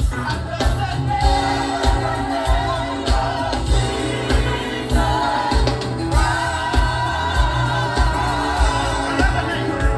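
Live gospel music: a choir singing over a band with a steady bass-heavy beat, the voices holding a long note from about halfway through.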